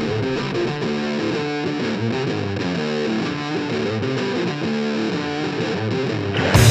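Background rock music: a distorted electric guitar playing a riff of held notes, with the full band coming in louder near the end.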